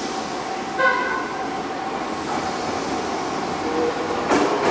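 Electric subway train running through an underground station, a steady rumble with faint steady tones, broken by a short pitched beep a little under a second in and a sharp clack near the end.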